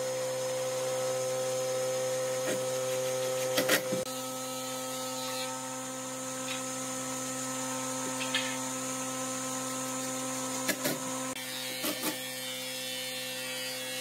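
Cordless drill driving screws into pine boards: a steady motor whir, with a few sharp clicks and knocks a little under four seconds in and again near the end.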